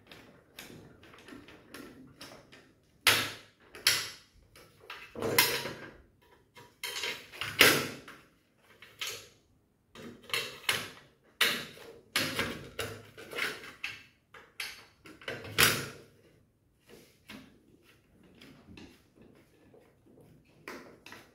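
Aluminium window-frame sections being handled and fitted together on a wooden workbench: irregular knocks, clicks and scraping of metal on metal and wood, with a handful of louder knocks spread through.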